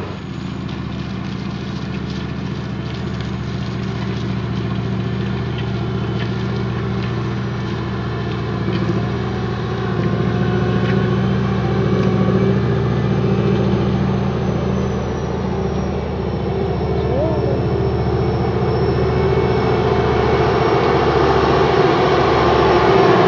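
Vredo VT5518-3 self-propelled slurry applicator's Deutz V8 engine running steadily under load as the machine drives across the field with its disc harrow working. It grows louder toward the end as the machine comes close.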